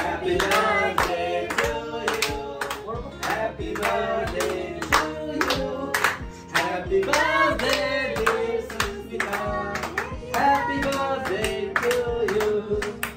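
Several people clapping their hands steadily in time, along with singing.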